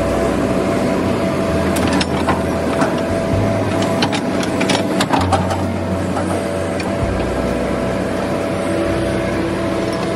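Excavator diesel engine running with its hydraulics working, the low engine drone stepping up and down several times as the boom and bucket move. A cluster of sharp clicks comes between about two and five seconds in.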